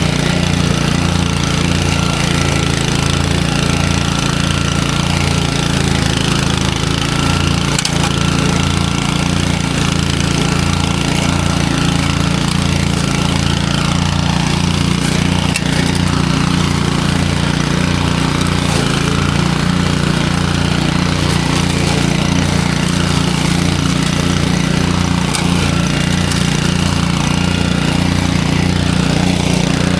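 Engine of a Honda UM536 three-wheeled self-propelled mower running steadily while mowing grass.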